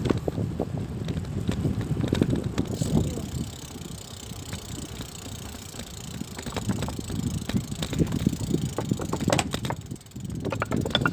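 Bicycle rolling over rough, cracked concrete, heard from a phone mounted on the bike: a rough rumble and rattle from the bumps. It eases off a few seconds in and builds again.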